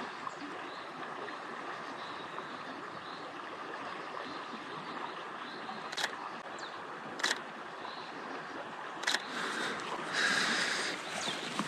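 Steady outdoor background noise, with three sharp clicks about six, seven and nine seconds in and a brief louder rustle near the end.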